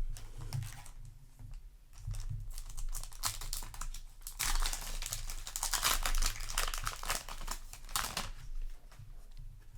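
Crinkling and rustling of a foil booster pack wrapper being handled and crumpled, with scattered small clicks; the crinkling is loudest in a stretch from about halfway through to near the end.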